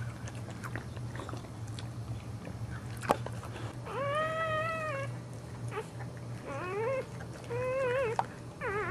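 Newborn boxer puppies crying: thin, high-pitched squeals, the first held about a second, then three shorter wavering ones near the end. Before them, soft wet clicks of the mother licking the newborn free of its birth sac.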